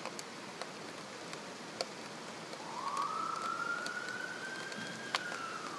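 An emergency vehicle siren starts about two and a half seconds in, rising slowly to a held wail and then beginning to fall. Under it, heavy rain hisses steadily, with scattered sharp ticks of small ice pellets striking.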